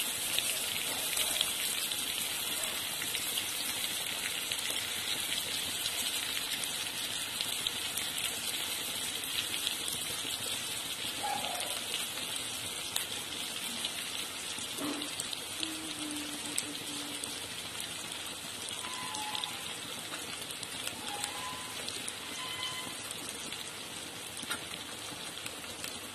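Chopped onions frying in hot oil in a kadhai, a steady sizzling hiss with fine crackles that eases a little toward the end.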